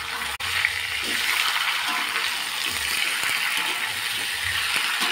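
Raw pieces of patin catfish sizzling in hot oil with fried spices as they go into the pan: a steady hiss.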